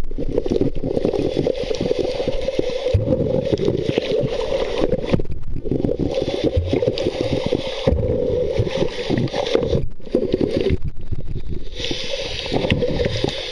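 Muffled underwater water noise picked up by a camera held below the surface: a dense low rushing wash full of fine crackles and scrapes. It thins out briefly about halfway through and again for a second or so near the end.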